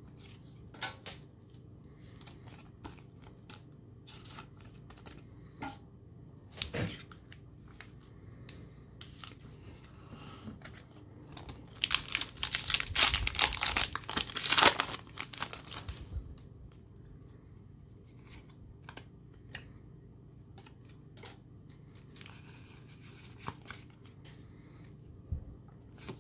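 A foil Pokémon Darkness Ablaze booster pack wrapper being torn open and crinkled: a loud stretch of about four seconds near the middle. Around it, faint taps and slides of trading cards being handled.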